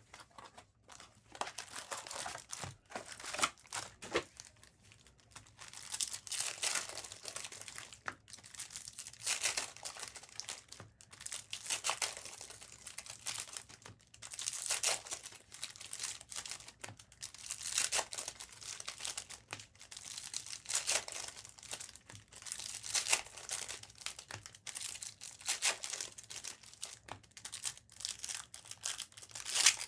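Trading card pack wrappers being torn open and crinkled, in repeated short bursts of tearing and crumpling every second or two.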